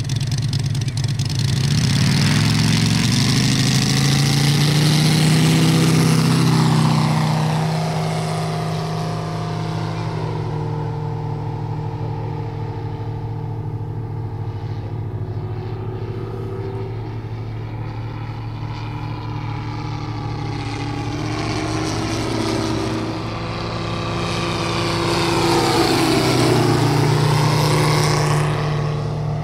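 Moki 250 five-cylinder radial engine of a large RC biplane, with its propeller, throttling up and rising in pitch over the first few seconds for the takeoff run, then a steady, fainter drone as the plane flies high. It grows louder again near the end, with a rising and falling pitch as the plane makes a low pass.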